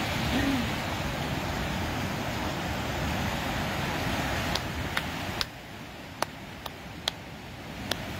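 Steady rush of ocean surf and wind that drops away about five seconds in, followed by a scattering of sharp clicks.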